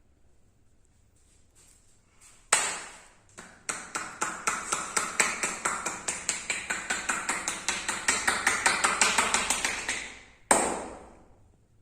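Percussive massage: a barber's hands striking the body in a rapid, even run of slaps, about five a second, for several seconds. A single loud sharp slap comes before the run and another after it.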